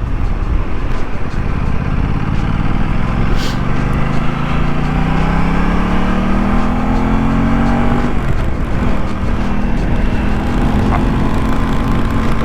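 Aprilia RS660 parallel-twin engine pulling under acceleration, its pitch rising for several seconds. About two-thirds of the way through it drops back and then runs steadily. Heavy wind rumble on the microphone runs underneath.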